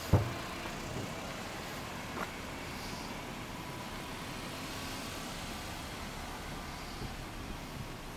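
Steady road traffic noise, with a sharp thump just after the start and a smaller knock about two seconds in.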